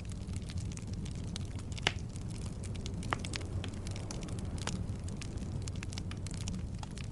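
Logs burning in a fireplace: a steady low rumble of flame with frequent sharp wood crackles and pops, the loudest pop about two seconds in.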